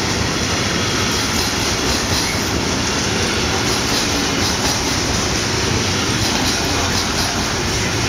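Intermodal freight wagons loaded with tank containers and swap bodies rolling past close by: a steady, loud rumble of steel wheels on rail, with faint repeated clicks of the wheels over the rail joints.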